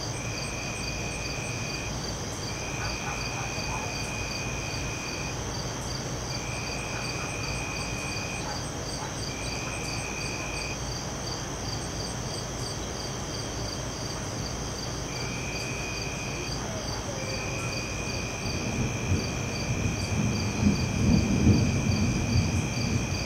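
Summer night chorus of crickets and other insects: a steady high trilling with a chirp pulsing about four times a second, and a lower buzzing trill that starts and stops every few seconds. A low rumble rises near the end.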